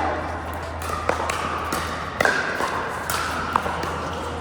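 Pickleball paddles striking the ball: about five sharp pops at uneven intervals, over the steady background noise of a court.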